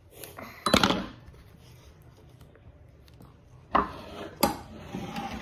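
A blind-bag toy package being handled and opened: a few sharp knocks and clicks, a cluster about a second in and two more near the end.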